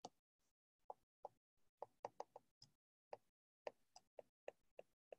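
Faint, irregular clicks and taps of a stylus on a tablet screen during handwriting, about fifteen short ticks.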